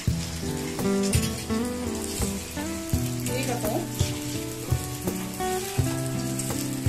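Bread slice soaked in milk, egg and sugar frying in butter on a flat iron tawa, sizzling steadily, under soft background music.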